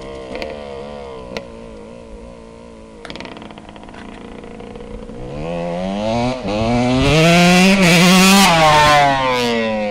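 Dirt bike engine, heard fainter at a distance at first, then accelerating towards the listener: it rises in pitch and gets loud, then drops in pitch as it goes past near the end.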